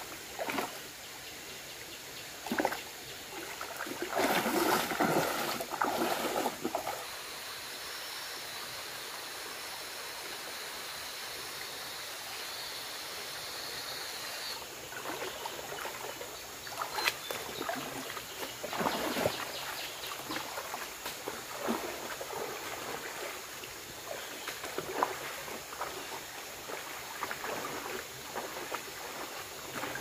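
Running stream water with intermittent splashes and knocks, louder for a few seconds early on and again near the twentieth second. A steady high tone runs for about six seconds in the middle.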